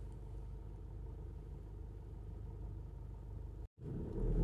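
Steady low engine and road rumble of a car driving in city traffic, heard from inside the car. The sound drops out for an instant near the end and comes back louder.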